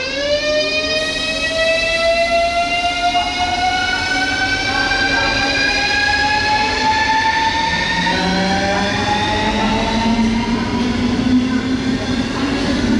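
ES2G Lastochka electric train accelerating, its traction drive whining in a stack of tones that climbs steadily in pitch over the running rumble. About eight seconds in, a second, lower whine joins and also rises.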